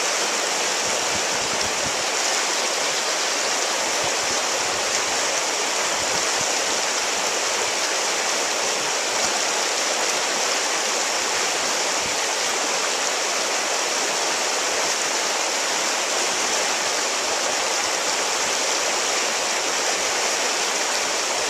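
River rapids rushing over rocks: a steady, unbroken hiss of fast, shallow water.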